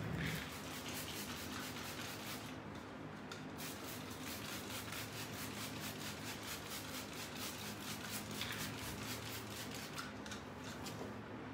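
Plastic trigger spray bottle squirting water in quick, even pumps, several a second, misting a paper-towel-textured surface.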